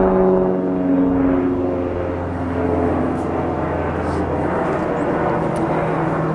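Twin-engine propeller airplane passing overhead: a droning hum made of several tones that slide slightly lower in pitch and fade about four seconds in, leaving a broad rushing sound.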